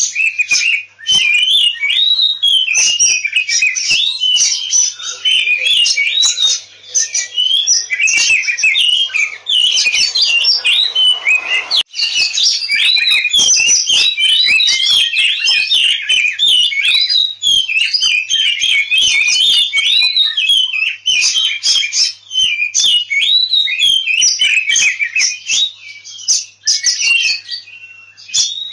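Oriental magpie-robin (kacer) singing loudly and without pause: a fast, varied stream of rising and falling whistled notes mixed with harsh, clicky notes. This is the agitated 'ngobra tarung' fighting song.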